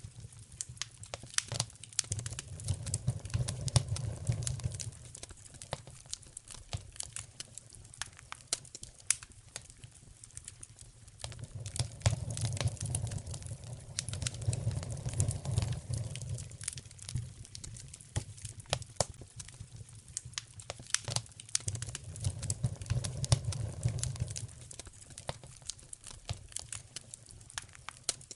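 Wood fire in a fireplace crackling, with many sharp pops and snaps. A low rumble swells up and dies away three times.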